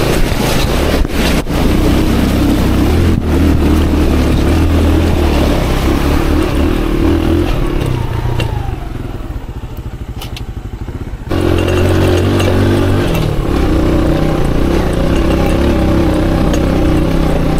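Aveta Ranger Max motorcycle's engine running while being ridden off-road, with a few sharp knocks about one and three seconds in. About nine seconds in the engine drops back and quietens for a couple of seconds, then picks up again suddenly.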